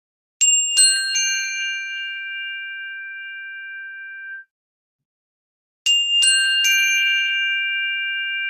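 Three bright bell-like chime notes struck in quick succession, ringing on together for a few seconds and then cut off abruptly. The same three-note pattern is struck again about six seconds in.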